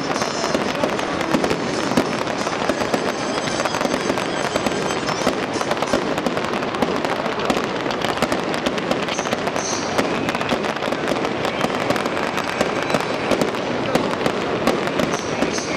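Fireworks display going off: a dense, continuous crackle of many rapid pops and bangs with no pause.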